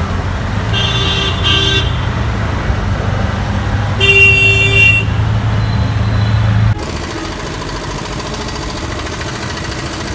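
Auto-rickshaw engine running with a steady low drone in street traffic, with two short horn toots about a second in and a longer honk around four seconds. The drone stops abruptly about two-thirds of the way through, leaving a lighter, even traffic noise.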